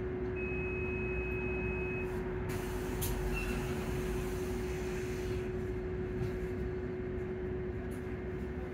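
Volvo hybrid bus drivetrain heard from inside the passenger saloon: a steady whine from the electric drive over a low rumble. A brief high tone comes near the start, and a few seconds of hissing air with a click begin about two and a half seconds in.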